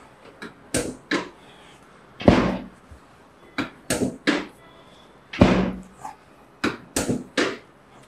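Short thumps and knocks from a chiropractic treatment table as the patient's lower back is pressed down in quick pushes, coming in groups of two to four, a few of them longer with a short fading tail.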